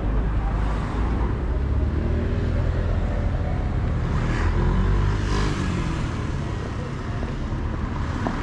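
Road traffic: a car running close by, a steady low rumble that eases off about five and a half seconds in.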